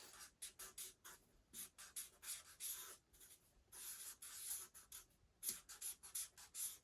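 Pen strokes scratching across paper, faint, in many quick short strokes as a word is lettered.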